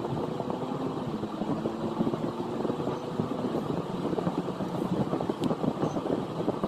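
A car driving along a city road, heard from inside the cabin: a steady mix of engine and road noise.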